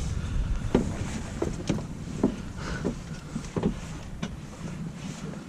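Low rumble on a fishing boat, with a series of irregular sharp knocks and clicks over it; the rumble drops away near the end.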